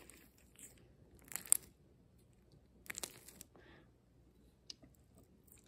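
Hands kneading and squeezing blue glue slime in a plastic bowl: faint sticky crackles and clicks in short clusters, the main ones about one and a half seconds in and again around three seconds in.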